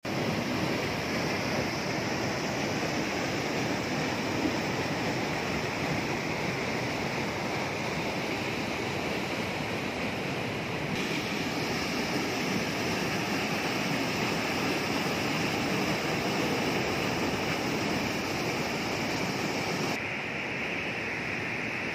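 Fast floodwater rushing and churning over concrete and spilling over a river weir: a loud, steady rush. Its tone shifts abruptly about halfway through and again near the end.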